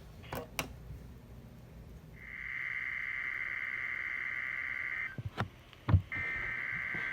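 NOAA Weather Radio SAME alert header: screeching two-tone digital data bursts. One starts about two seconds in and lasts about three seconds, and the next follows after a one-second gap. Sharp clicks come near the start, and a loud thump falls in the gap.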